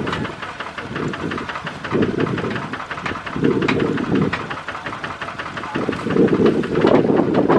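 Single-cylinder diesel engine of a Kubota RT140 two-wheel tractor idling, with an even, rapid chug of about eight to ten beats a second. Gusts of wind rumble on the microphone at intervals over it.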